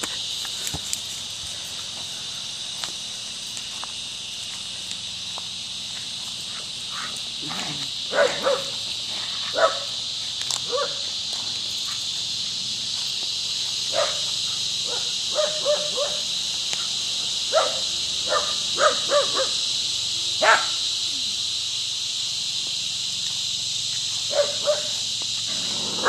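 Scottish Terrier barking, single sharp barks and quick runs of two or three, starting about a third of the way in and scattered through the rest. Behind it, a steady high-pitched buzzing drone of cicadas in the trees.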